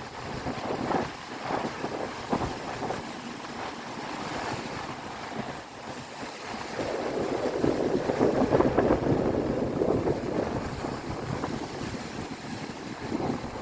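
Sea waves washing onto the shore, swelling louder about seven seconds in and then easing, with wind buffeting the microphone.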